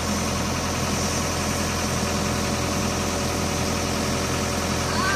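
Tracked excavator's diesel engine running steadily while its hydraulic grapple is worked.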